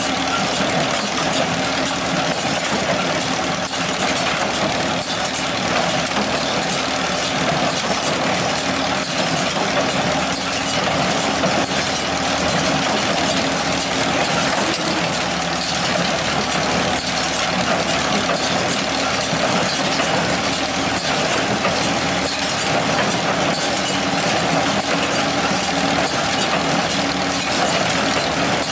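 Old John Deere 216 wire-tie hay baler running, its four-cylinder Wisconsin engine humming at a steady speed with no let-up.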